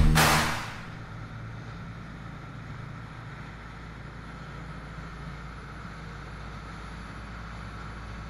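Fishing boat under way at speed: a steady low engine drone with the rush of wind and wake water. Music cuts off within the first second.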